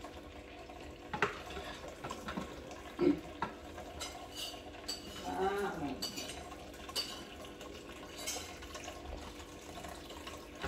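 Dishes being washed by hand in a stainless steel sink: plates clinking against the steel now and then, with tap water running.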